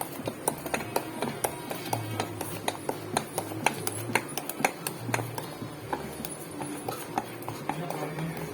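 Thick maida-and-semolina batter being stirred and beaten in a bowl to break up lumps, with quick, irregular clicks and wet slaps several times a second.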